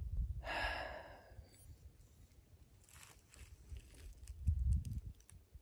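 A hiker's heavy breathing: a long exhale about half a second in and a fainter breath around three seconds, over uneven low thumps from walking steps and the handheld phone jostling.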